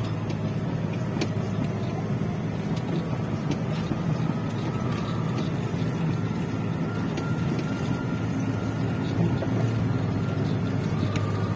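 A vehicle engine running steadily with a constant low hum, and a few light clicks over it.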